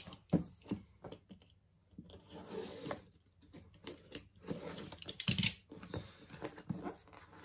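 Board-game boxes and packaging being handled: rustling and crinkling with scattered light taps and knocks, and a short lull about a second in.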